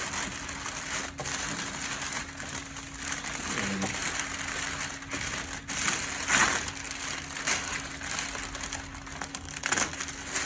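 Backing film being peeled off a large adhesive vinyl decal, crackling and crinkling steadily, with louder crinkles about six seconds in and again near the end.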